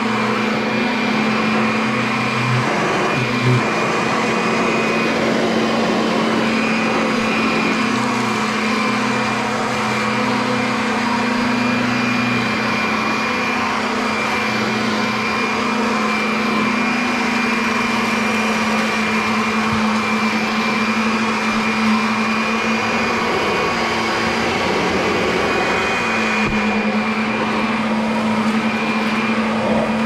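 Vacuum cleaner running steadily: an even motor hum and a thin high whine over the rush of air.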